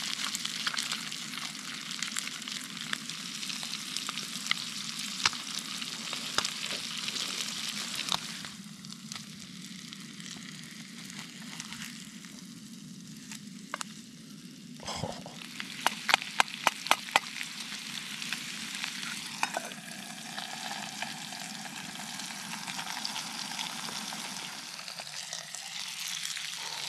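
Trout fillets sizzling as they fry in a pan. The sizzle eases in the middle and picks up again later, with a quick run of sharp taps about two-thirds of the way through.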